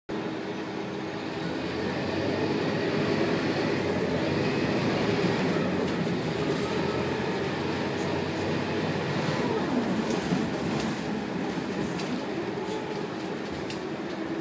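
Scania K280UB city bus heard from inside the saloon: its Scania DC9 9.3-litre five-cylinder diesel and ZF Ecomat six-speed automatic gearbox running under way, with road noise, rising in level over the first few seconds. A few light cabin clicks and rattles come in the second half.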